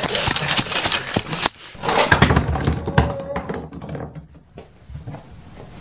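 Tall grass rustling and brushing against a moving camera. After an abrupt change about a second and a half in, there are knocks and light clatter of PVC pipe and fittings handled on a wooden workbench, quieter clicks toward the end.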